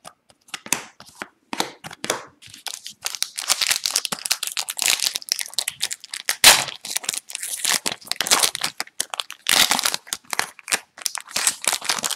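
Foil-lined trading card pack wrapper crinkling and tearing as it is ripped open and the cards are pulled out: a run of sharp crackles, with one loud crack about halfway through.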